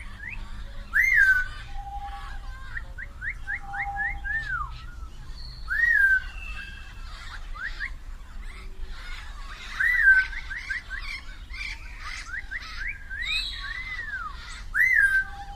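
Parrots chirping and whistling: quick rising chirps throughout, with a loud arched whistle about every four to five seconds.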